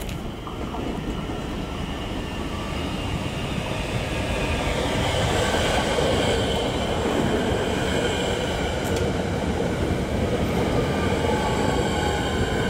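Metro suburban electric train approaching and then passing close by, its wheels rumbling on the rails under steady high whining tones. It grows louder over the first half and then holds at full level as the carriages go by.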